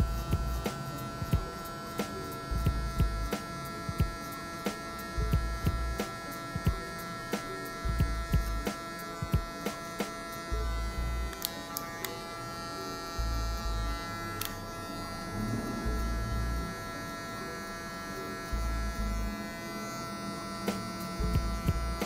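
Cordless hair clipper running with a steady buzz as it cuts short hair at the temple and sideburn, fading the hairline, with frequent short clicks.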